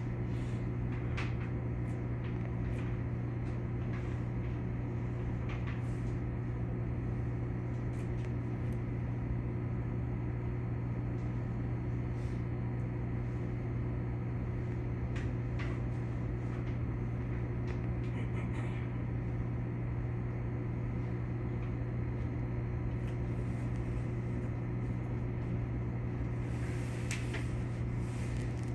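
Steady low hum of a halted electric train's onboard equipment, with a few faint ticks and clicks scattered through it.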